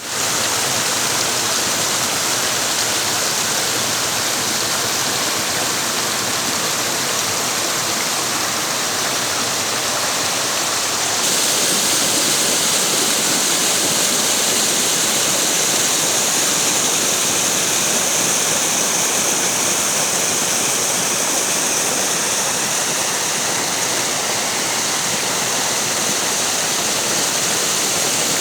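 Mountain water rushing and falling: a steady, loud roar of flowing water with no break, a little louder and hissier from about eleven seconds in.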